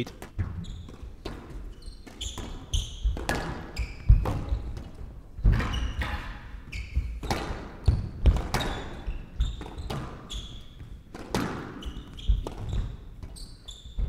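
Squash rally: the ball cracking off rackets and the court walls at an irregular pace, with rubber-soled shoes squeaking on the wooden court floor between shots.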